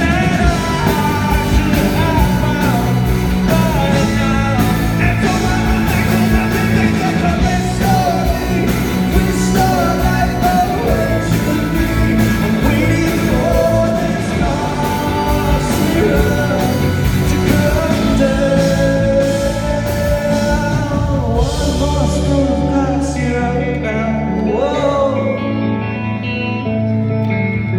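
Live rock song performed in concert: singing over guitar and a full band.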